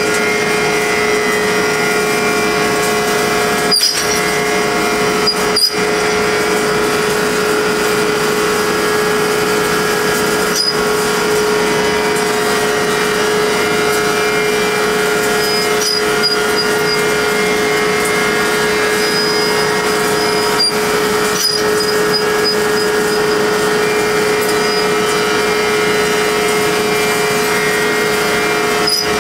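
Metal-cutting machine running steadily on a sprocket-shaped steel part, a constant hum with a steady whine over it. A few sharp clicks come at irregular intervals, near 4, 6, 11, 21 seconds and at the end.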